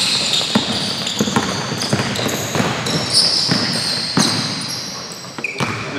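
Basketball being dribbled on a hardwood gym floor, a run of bounces about two a second, with sneakers squeaking at times as players run.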